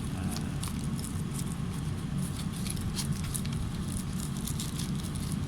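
Scattered light clicks and taps of small cook-kit pieces being handled and packed, over a steady low background rumble.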